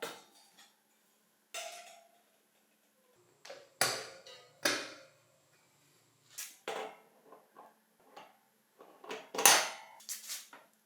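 Scattered knocks and clinks of tools and metal parts being handled, about a dozen short sounds with quiet between, the loudest about nine and a half seconds in.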